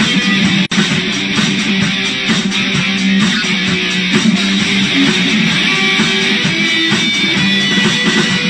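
Guitar music: strummed and picked guitar with a dense, sustained sound, cut by a brief dropout about a second in.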